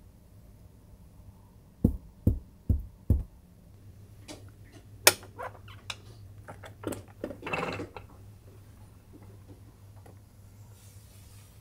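Four dull thumps in quick succession, then a sharp click and a run of lighter clicks with a brief sliding rustle as a capsule pod's roller blind is pulled down by its handle.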